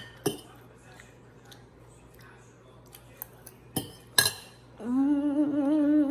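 A spoon clinks against a bowl a few times while she eats, sharp single clinks with quiet between them. About five seconds in, a girl starts humming a wavering tune.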